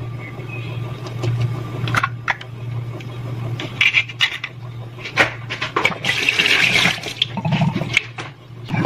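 A raw chicken egg being cracked over a stainless steel pot, with a few sharp taps and cracks of shell. A rushing hiss lasts about a second near the end, over a steady low hum.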